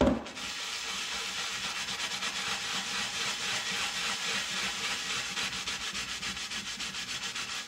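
ENJO kitchen scrub pad scrubbing the stained bottom of a pot coated in watery marble paste: a continuous rasping rub made of rapid, even strokes. A single knock comes at the very start.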